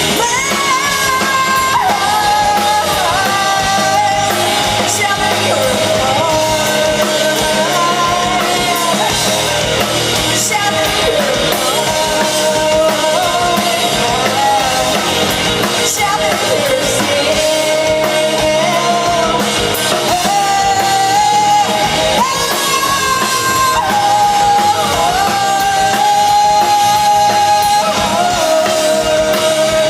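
Rock band playing live, a singer holding long sustained notes over guitars and drums.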